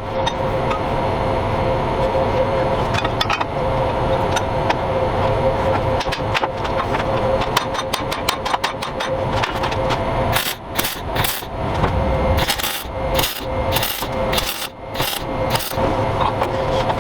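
Steel being worked by hand in a workshop: a steady hum runs throughout, and from about ten seconds in comes a quick run of sharp knocks that fits hammering a welded steel piece to its curve.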